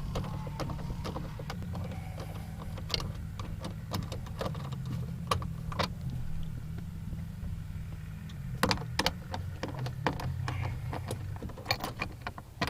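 Scattered clicks and light taps of a hand tool backing out the 8 mm screws on a door panel, over a steady low hum.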